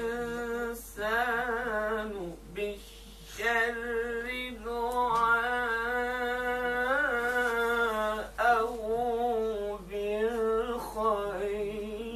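A man reciting the Quran in the melodic, ornamented tajweed style, drawing out long wavering notes in several phrases with short pauses for breath, about two and a half and eight seconds in.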